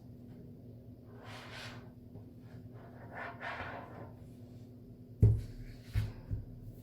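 Quiet study-room ambience with a faint steady hum. Two soft hissing sounds come through, then about five seconds in a sharp thump on the desk followed by two lighter knocks.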